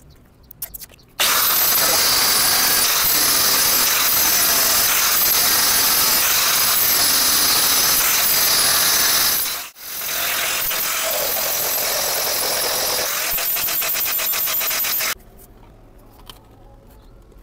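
Electric angle grinder running with its disc against a PVC water pipe, a loud whining grind. It starts about a second in, dips out for a moment just before ten seconds, runs again and stops abruptly about fifteen seconds in.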